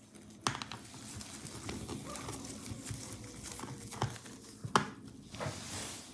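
Small screwdriver working a battery-retaining screw in an opened laptop: light scraping and handling noise with a few sharp clicks, one about half a second in, one at about four seconds and the loudest just before five seconds.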